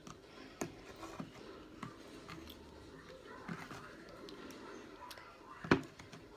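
A spoon stirring glue and borax solution together in a bowl to make slime: light, scattered clicks and scrapes against the bowl, with one sharper knock near the end.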